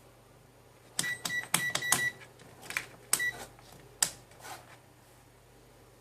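Pocket digital multimeter beeping and clicking as it is handled: a quick run of about five short high beeps with clicks about a second in, more clicks, one more short beep about three seconds in, and a last sharp click about a second later.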